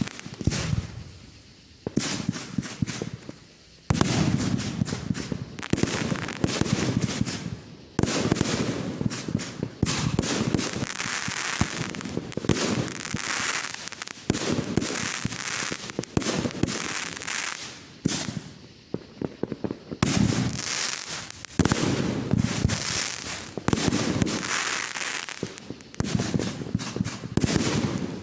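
Fireworks display: aerial bursts going off one after another, sharp bangs in quick succession with dense crackling between them, and a few louder reports standing out.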